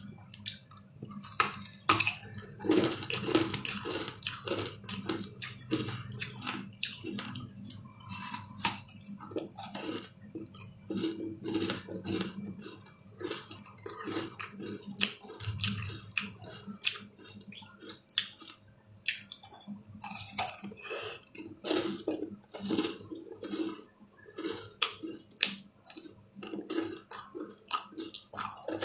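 Close-up eating sounds of a blue ice treat being bitten and chewed: a steady run of irregular sharp crackles and clicks over low chewing noise.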